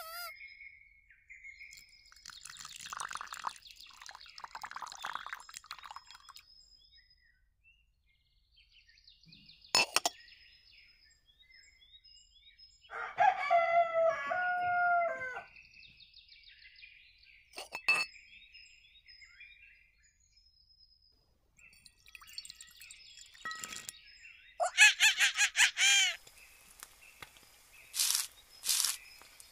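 A rooster crows twice, about halfway through and again near the end, over scattered faint small-bird chirps. Three sharp clicks, from small dishes being set down, come in between the crows.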